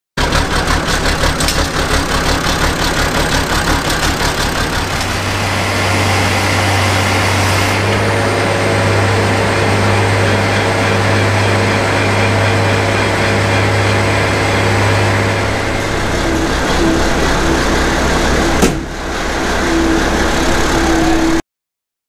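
Massey Ferguson 1130 tractor's diesel engine running steadily. There is one sharp knock a little before the end, and then the sound cuts off suddenly.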